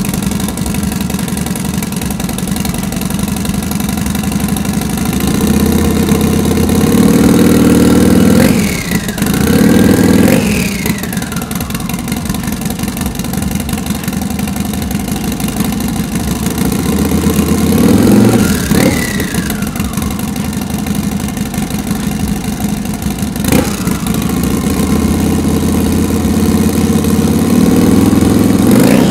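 Turbocharged Harley-Davidson Sportster V-twin running, blipped up sharply three times: twice in quick succession about a third of the way in, and once more past halfway. After each rev a high turbo whistle falls away.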